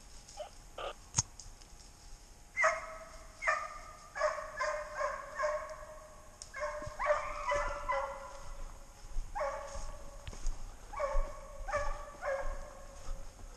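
Deer hounds baying on a drive: a run of ringing, drawn-out cries about a second apart, in bunches, with a longer cry about seven seconds in. A single sharp click sounds about a second in.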